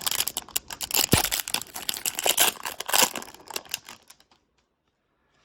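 A hockey card pack's wrapper being torn open and crinkled, with dense crackling and rustling for about four seconds before it stops.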